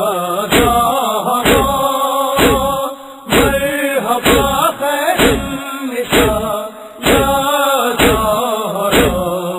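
A man chanting a noha, an Urdu Shia lament, with a wavering, melismatic voice. He is backed by evenly spaced sharp slaps of matam (rhythmic chest-beating), a little more than one a second.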